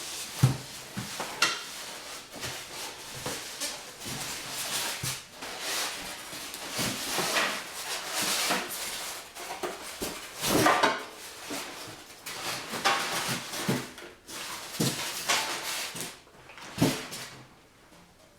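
Irregular clunks, clatters and rustling of hard objects being handled, with a sharp knock about half a second in and a louder cluster of knocks about halfway through. No motor is running.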